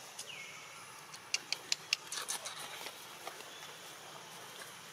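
Dry leaf litter crackling under a monkey's feet: four sharp clicks in quick succession about a second and a half in, then a short patch of crackling.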